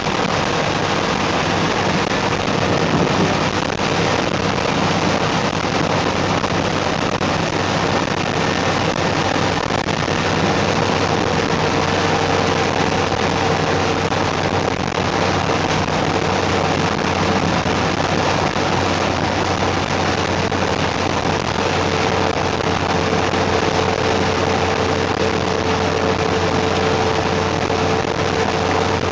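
Steady thunderstorm rain, an even hiss, with a low steady hum underneath and a faint steady tone joining about ten seconds in. No thunder.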